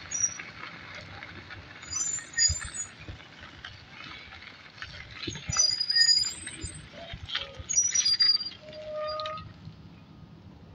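Tyres rolling and rattling over a gravel lane, with the brakes giving short high-pitched squeals several times as the rider slows. Near the end a lower brake squeal is held for about a second.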